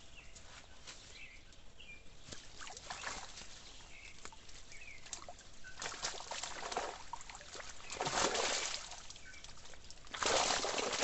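Water splashing and sloshing in several short bursts, the last and loudest near the end, with a few faint bird chirps in the quieter first half.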